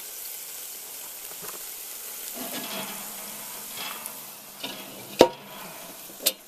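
Beef ribs sizzling steadily over charcoal briquettes in a cast iron camp oven. About five seconds in, the inverted cast iron camp oven used as a lid, loaded with hot coals, is set down on top with one sharp metal clank, followed by a lighter clink about a second later.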